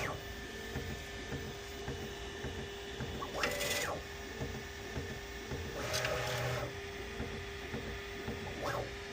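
3D printer running at the start of a print: a steady hum, with two short stepper-motor whirs about three and a half and six seconds in.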